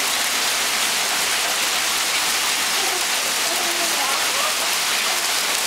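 Hail falling steadily on a lawn and concrete walkway, an even hiss of many small ice pellets striking the ground.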